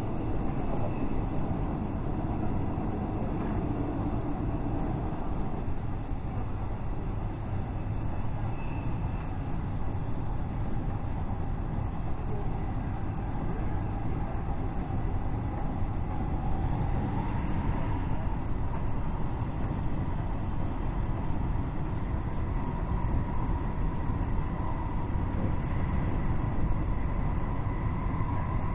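Interior of a Gyeonggang Line electric commuter train car, running: a steady rumble with a faint whine that rises a little about halfway through.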